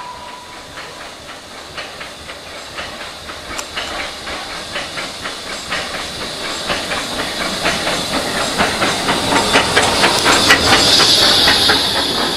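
Steam tank locomotive approaching on the next track and passing close alongside: rhythmic clicking and steam hiss that grow steadily louder, with the hiss loudest as it comes level near the end. The tail of a steam whistle dies away in the first second.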